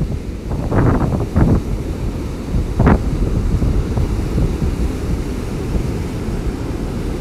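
Strong wind from a hurricane passing offshore buffets the microphone in a low, steady rumble, with surf washing behind it. A few harder gusts hit about one and three seconds in.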